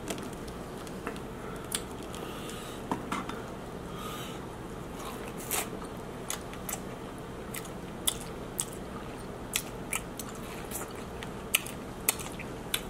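King crab legs being cracked and eaten: a dozen or so sharp shell cracks and clicks at irregular intervals, with chewing.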